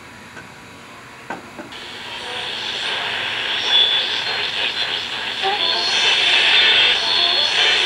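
Train approaching: a hissing rush that sets in about two seconds in and swells steadily louder, with a couple of soft knocks just before it begins.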